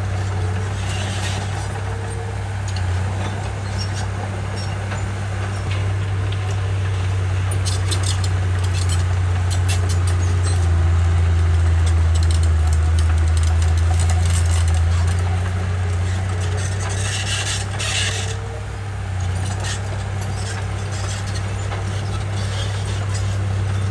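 Komatsu bulldozer's diesel engine running steadily with a deep drone while pushing topsoil. It grows louder for a few seconds in the middle, and short bursts of clatter come about eight seconds in and again near the end.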